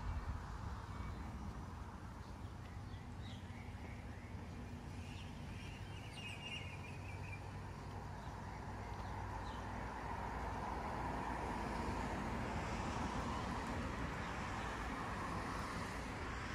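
Suburban street ambience: a steady hum of car traffic that swells a little in the second half, with a few bird chirps about three to seven seconds in.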